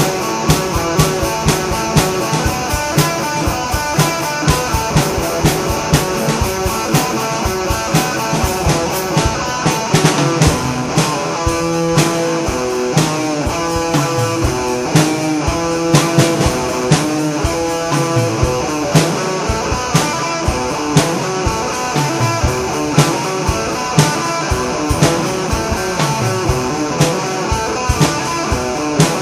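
Rock music played on guitar and drum kit, the drums hitting at a steady beat under the guitar.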